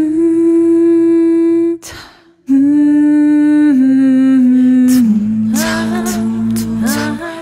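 A woman's voice humming long held notes as a song's intro. It breaks off for a breath about two seconds in, then holds a note that steps down in pitch several times.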